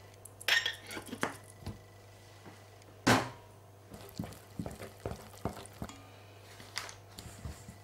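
A spoon and spatula stirring wet pizza dough in a stainless steel bowl: irregular scrapes and light taps of utensils against the metal, with one louder knock about three seconds in.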